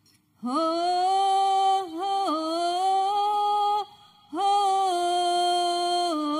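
Women's voices singing a banjari vocal line with no drums: two long, drawn-out phrases at a steady pitch with small bends. The first begins about half a second in, and the second follows after a short breath just past the middle.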